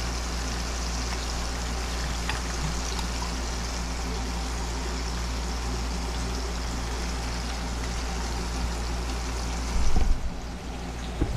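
Fish frying in oil in a pan on an induction cooktop: a steady sizzle over the cooktop's low fan hum. A sharp knock comes about ten seconds in, and a lighter one near the end.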